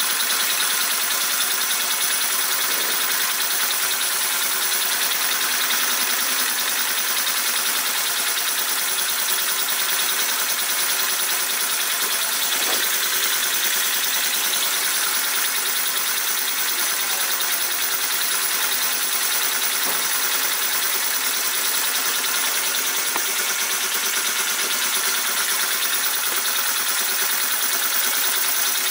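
Small homemade single-cylinder steam engine running steadily on compressed air fed through a hose, with a continuous hiss of air escaping from the cylinder and valve.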